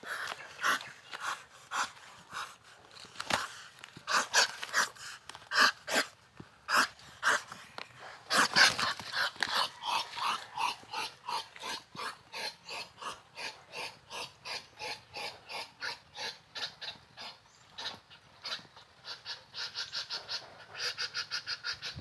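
Duck and rooster fighting: a long run of short, harsh, repeated calls, settling into about three to four a second and quickening near the end.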